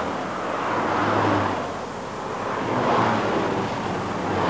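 Motorway traffic noise: a steady rush of tyres and engines that swells twice as vehicles go by.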